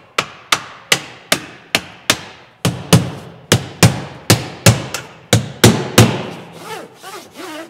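Hammer blows on a part at a truck cab's floor and door sill, about two to three sharp strikes a second, each with a short ringing tail. After about six seconds the blows stop and only softer, irregular knocks follow.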